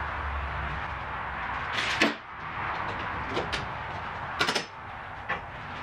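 A few sharp knocks and clacks of tools and car parts being handled in a workshop: a louder one about two seconds in, a quick run of three later on and one more near the end, over steady shop background noise.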